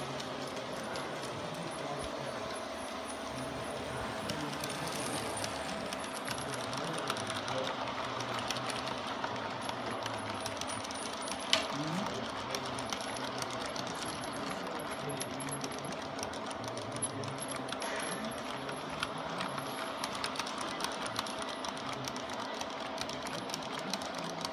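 LGB garden-scale model freight train rolling past, its long string of wagons rattling steadily with a stream of fine metallic clicks from the wheels on the track. There is one sharper click about halfway through.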